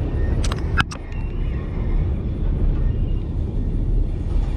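Wind buffeting the microphone in a steady low rumble, with a few sharp clicks about half a second to a second in.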